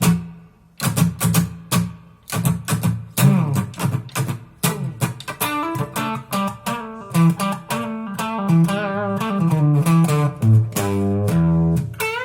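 Gibson Les Paul Standard electric guitar with humbuckers played on a clean tone through a Zoom G5n multi-effects unit's Marshall Plexi amp simulation, with tape echo and spring reverb. Separate picked notes and chords at first, then from about halfway a flowing run of ringing notes.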